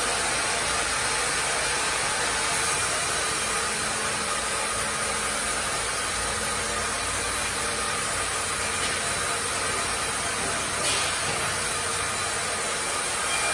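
Sawmill carriage-saw machinery running: a steady, even mechanical hiss and hum from the log carriage and the running saw. Near the end, the carriage brings the log up to the blades.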